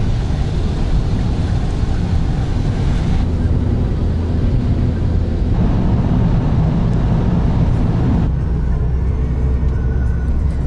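Steady low engine drone of an aircraft in flight, changing abruptly in tone a few times.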